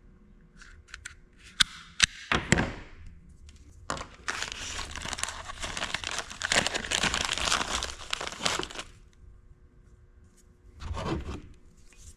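A few sharp clicks, then about five seconds of crinkling, tearing noise from something being handled, with a shorter burst of the same near the end.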